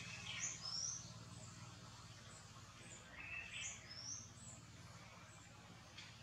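Faint forest birdsong: a few short, high chirps, in two clusters about half a second in and again around three and a half seconds in, over a low steady hum.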